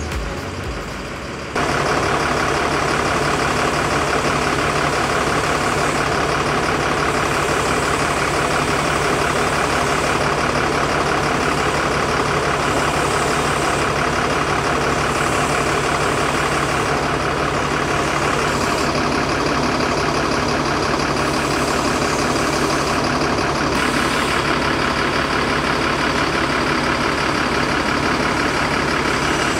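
Diesel engine of a Mercedes-Benz coach bus idling steadily, warmed up before departure. It cuts in abruptly about a second and a half in and stays even after that.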